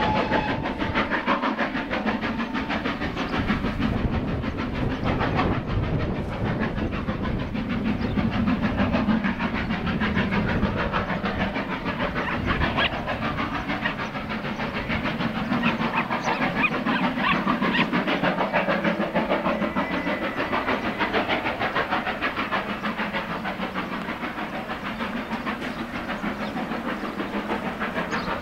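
GWR Manor class 4-6-0 steam locomotive No. 7827 Lydham Manor, a two-cylinder engine, working hard up a gradient with a heavily loaded train, its exhaust barking in a steady, even beat. A whistle note ends about a second in, and the beat fades a little near the end as the engine draws away.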